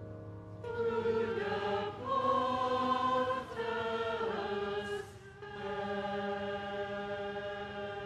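Church choir singing slow, sustained chords, the voices holding long notes, with a short break about five seconds in before a final held chord.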